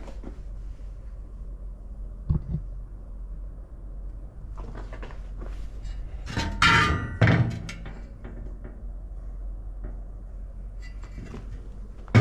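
Steel welding practice pieces being handled: one short knock about two seconds in, then a louder bout of clanking and clatter a few seconds later as the metal is moved and set down.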